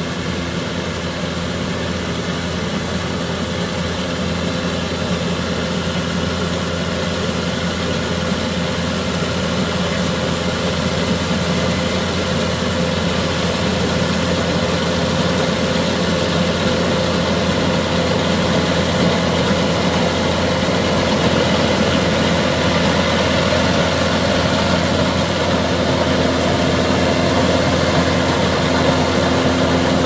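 Claas Columbus combine harvester running as it cuts standing wheat: a steady drone of engine and threshing machinery with several held tones, growing louder as the machine comes closer.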